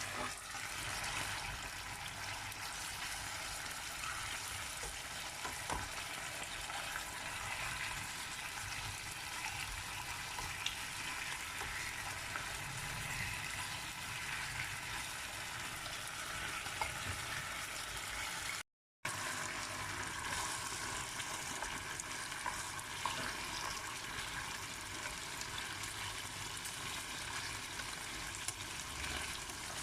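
Food frying in oil in a pan: a steady sizzle with scattered small crackles. It cuts out completely for a moment about two-thirds of the way through, then carries on.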